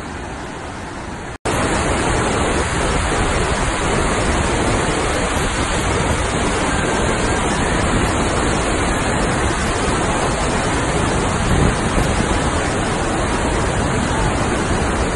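Large waterfall's rushing water: a quieter, more distant rush for the first second and a half, then a sudden cut to a much louder, steady rush of falling water and spray close to the falls.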